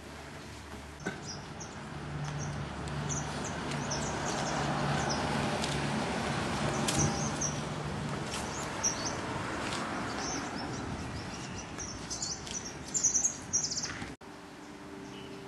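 Birds chirping in short repeated calls, loudest and busiest near the end, over a steady outdoor background noise that swells in the middle; it all cuts off abruptly near the end.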